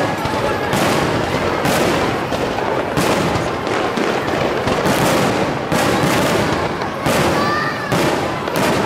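Aerial firework shells bursting one after another, a sharp bang about once a second, over a continuous rumble and crackle of the display.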